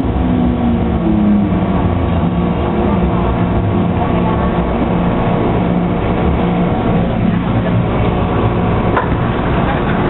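Onboard sound of an MTR M-Train: the traction motor whine falls in pitch during the first second or so as the train slows, then holds a steady hum over the low running rumble of the wheels and car body.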